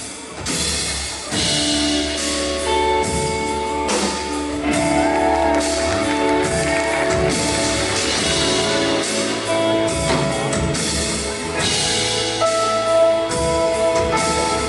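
Live band playing an instrumental song intro on guitar and drum kit, with held chords and a melody over a steady beat.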